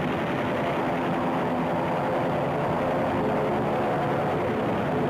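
Steady drone of World War II propeller aircraft engines, a continuous low, dull-toned roar with no breaks.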